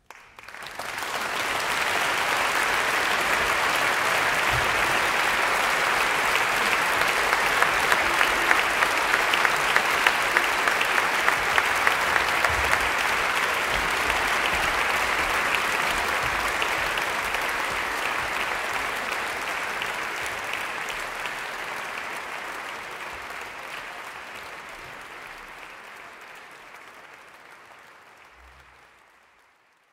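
Audience applauding, swelling to full strength within the first second or two and then fading out gradually over the second half.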